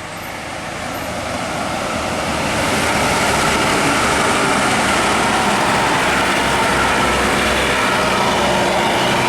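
A bus's engine and road noise, growing louder over the first few seconds and then running steadily loud.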